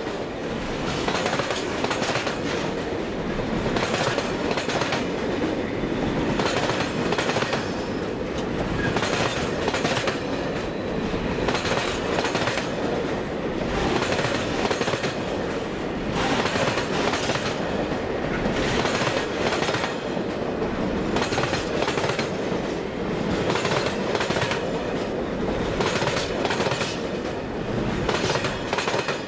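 Container flat wagons of a freight train rolling past close by: a steady rumble of wheels on rail with a repeated clickety-clack as the wheelsets pass.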